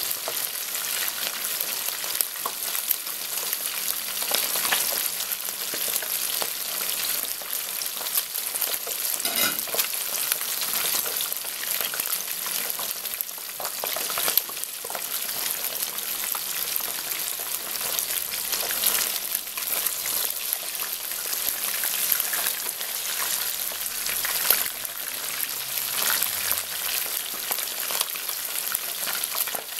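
Two whole fish deep-frying in hot oil in a wok: a steady, dense sizzle with scattered louder pops and crackles as the oil bubbles hard around the fish, fried until golden.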